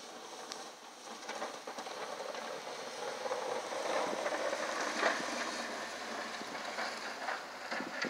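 Pickup truck with a front snowplow blade driving past, its noise growing louder toward the middle and then easing off.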